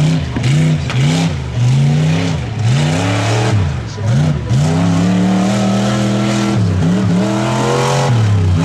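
Lifted mega truck's engine revving hard over and over, its pitch climbing and dropping in quick blips, then held high for about a second and a half past the middle before climbing again near the end.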